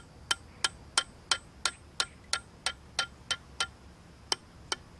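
Light metallic taps, each with a brief ring, about three a second with a short pause near four seconds in: a hand-forged replica prehistoric axe head being tapped on a post.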